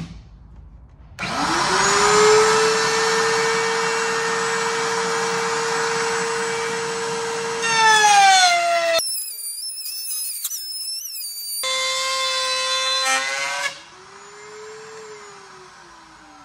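Router in a Bosch router table switched on and spinning up to a steady high-pitched whine. Its pitch drops as a strip of molding is fed through the bit and cut. The sound breaks off abruptly about nine seconds in, runs again, then stops near the end and winds down.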